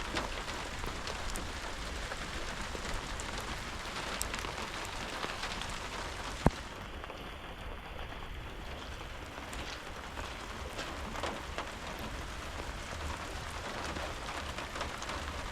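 Heavy rain falling steadily, with individual drops ticking close by. One sharp click about six and a half seconds in.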